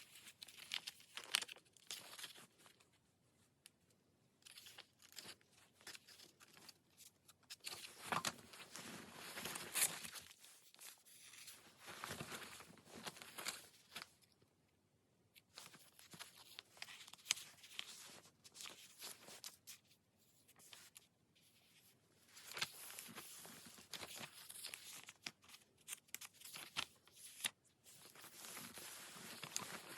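Paper and sticker sheets rustling and crinkling in irregular bursts, with sharp tearing and peeling sounds and short pauses between.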